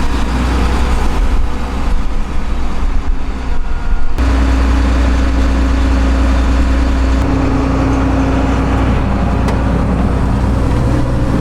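John Deere combine's diesel engine running steadily with a deep hum; the pitch and level shift abruptly about four seconds in and again near seven seconds.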